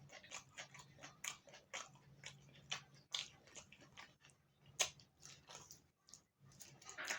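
Close-miked chewing and lip smacking while eating: an irregular run of short wet clicks and snaps, over a faint low hum.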